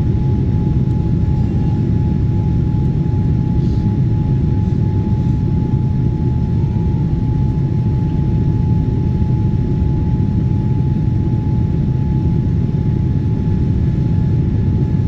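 Passenger jet cabin noise: a steady, loud low rumble of engines and airflow with a thin steady whine over it, unchanging throughout.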